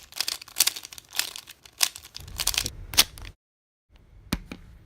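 3x3 Rubik's Cube being scrambled: quick, irregular plastic clicks and clacks of its layers turning. The clicking cuts out completely for about half a second after three seconds, then a few softer clicks follow.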